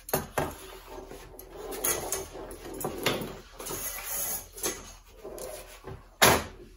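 Irregular clatter and scraping of a vertical antenna's radiator wire and plastic spacers being drawn out of its base section and across a wooden worktop, with a sharper knock about six seconds in.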